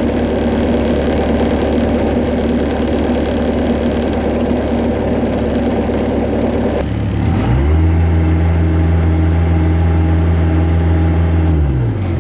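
1997 Bobcat 763 skid steer's diesel engine running steadily. About seven seconds in its speed rises and holds higher, then falls back near the end.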